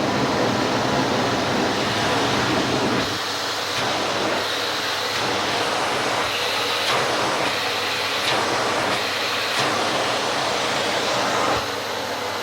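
Vintage Philips P74 canister vacuum cleaner running, a soft-sounding motor with a steady rush of air. From about three seconds in the sound swells and dips about once every second and a half.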